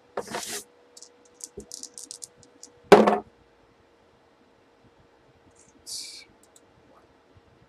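A pair of dice picked up with a brief scrape and rattled in the hand as light clicks, then tossed down onto a cardboard box with a sharp knock about three seconds in. A short rustle follows near the end.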